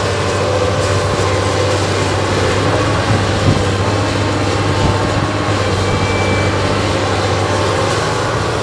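SANY crawler excavator running steadily while its arm digs in wet mud, a loud even engine noise with a deep hum under it. A single short knock sounds about three and a half seconds in.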